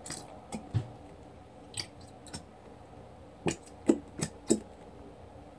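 Clear plastic Elmer's glue bottle squeezed by hand to empty it into a bowl: scattered crackling clicks from the flexing plastic and wet squishes of the glue, coming more thickly about three and a half seconds in.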